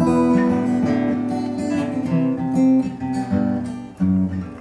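Acoustic guitar being played, picked and strummed chords with no singing.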